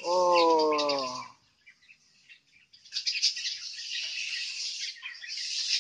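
A drawn-out voice for about a second, then, after a short pause, a steady hiss of water spraying onto a dog's coat during its bath.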